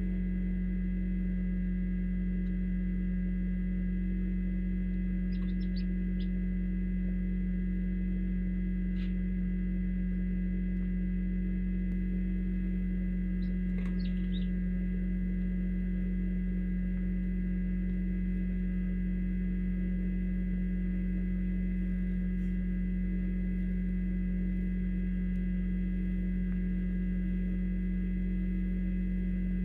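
A steady low electrical hum with a few faint, brief high peeps from newly hatched chicks now and then.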